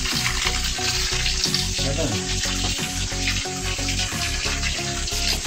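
Spring water running from a stone fountain's spout and splashing onto the ground as a plastic bottle is filled, a steady hiss of pouring water. Background music with a steady beat plays under it.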